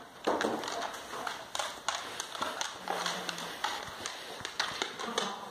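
Dogs' claws clicking and scrabbling on a hardwood floor as basset hounds and an English bulldog puppy scuffle in play, with many quick irregular taps.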